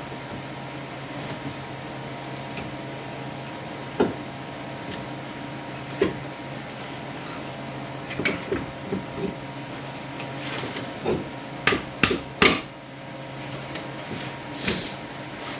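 Brake caliper and rotor parts being handled and fitted: scattered metallic knocks and clinks, a few at a time with pauses between, the loudest cluster about 11 to 12.5 seconds in, over a steady background hum.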